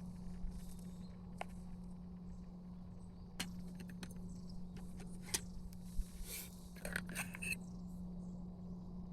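Scattered light clinks and taps of small hard items being handled, several in quick succession about two-thirds of the way in, over a faint steady low hum.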